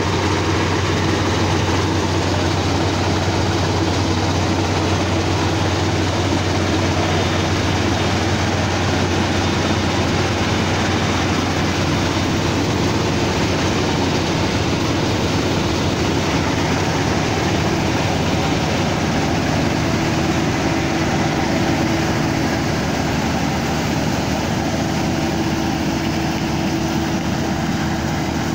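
Kubota DC35 rice combine harvester running steadily as it cuts and threshes rice: a loud, even engine drone with a low hum, growing slightly fainter near the end as the machine moves away.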